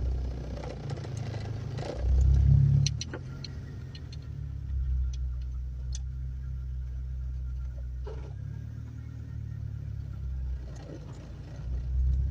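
Low, steady rumble of a motor vehicle engine running, swelling louder about two seconds in and again near the end.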